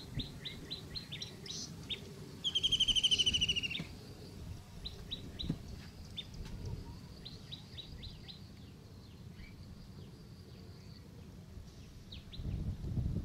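Small birds chirping, with many short high calls in loose runs. About two and a half seconds in, a loud rapid trill lasts just over a second. A low rumbling noise runs underneath and swells near the end.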